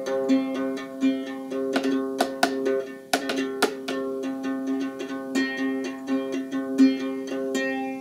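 Reproduction Anglo-Saxon harp, a wooden round lyre, played solo: its strings are plucked in a steady run of notes that ring into one another. The playing dies away near the end.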